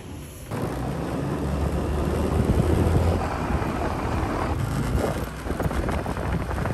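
Motor scooter riding along a street at low speed, engine and road noise with wind rumbling on the microphone; it starts about half a second in.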